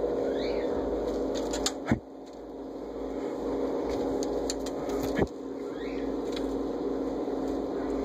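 A steady low hum with two sharp thumps, about two seconds in and again about five seconds in, and a couple of faint, short kitten mews.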